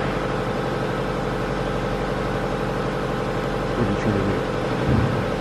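Blohm Profimat MC 607 CNC creepfeed profile grinder running under power: a steady mechanical hum.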